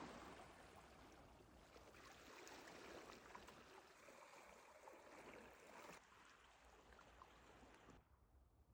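Faint sea waves washing on a beach, an even rushing water noise that drops abruptly about six seconds in and again near the end.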